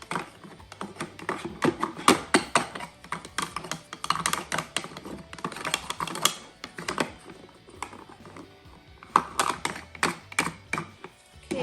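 Quick, irregular clicking and tapping of toy camp stove and play-food pieces being handled and knocked together, thinning out for a moment past the middle.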